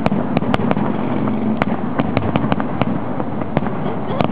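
Aerial fireworks display: shells bursting in quick, irregular succession, a continuous rumble with several sharp bangs a second on top.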